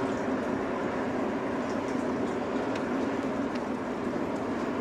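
Steady low rumble of a large offshore supply vessel's engines as it moves slowly through the harbour, with a few faint short high chirps over it.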